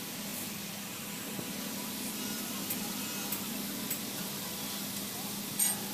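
Steady background noise with a faint hum and a few light taps as a clutch disc is handled and aligned on its pressure plate, with one short, sharper clink near the end.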